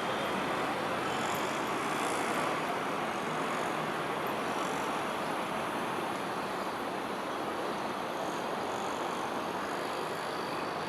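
Steady urban background noise, a hum of road traffic, holding even throughout.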